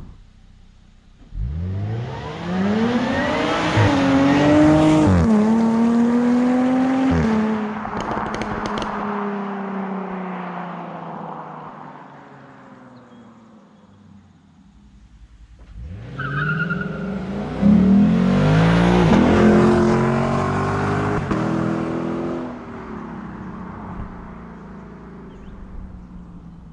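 A sports car accelerating hard twice. Each time the engine note climbs, steps down at upshifts, then fades away as the car pulls off.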